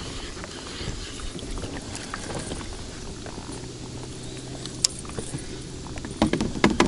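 Choppy water lapping against an inflatable boat in the wind, with a few sharp clicks as the fishing reel and lure are handled, one about five seconds in and several close together near the end.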